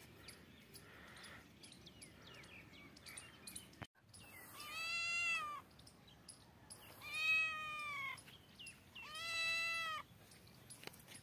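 Young spotted tabby cat giving three long, drawn-out meows, each about a second, while squared up to a dog.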